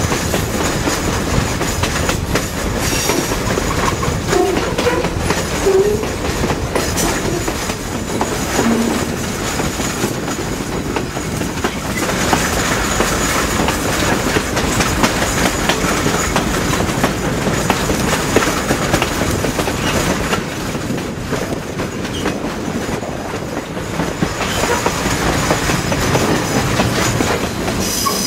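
Passenger train running along the track, heard from aboard a coach: a steady rumble and clatter of steel wheels on the rails.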